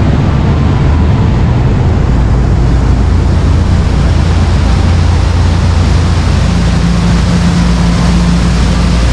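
High-speed water taxi under way: its engines running with a steady low hum under the loud rush of the churning stern wake. A second, higher steady hum joins about six and a half seconds in.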